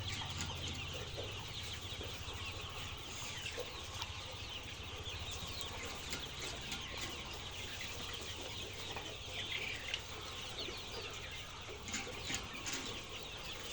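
A large flock of poultry-farm chickens clucking and chirping all at once, a steady, dense chatter of many birds with no single call standing out.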